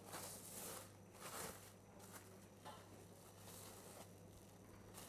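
Faint crinkling and rustling of plastic cling wrap being pulled off a ball of chilled pie-crust dough, in several short swishes.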